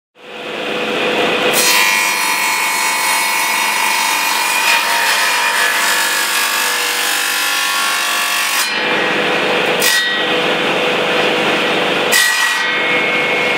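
Table saw running and cutting a wooden board: a steady loud whine with a hissing cutting noise that fades in over the first second and drops away briefly a few times in the second half as the board is fed through.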